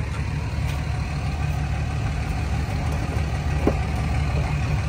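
Engine oil from an LLY Duramax draining in a steady stream into a plastic drain pan partly full of oil: a continuous low splashing that does not change.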